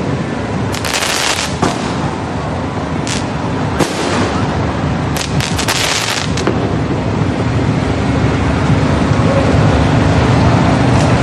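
Aerial fireworks bursting and crackling in several bursts during the first six seconds, over a steady din of a large crowd that grows louder toward the end.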